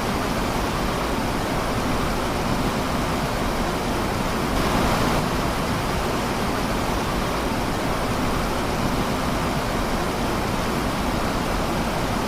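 Steady rushing of fast-flowing floodwater, with a slightly louder surge about five seconds in.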